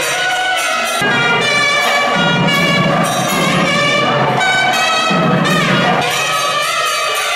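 Nadaswaram playing a melody of sliding, gliding notes, with a low hum underneath that swells and fades every second or two.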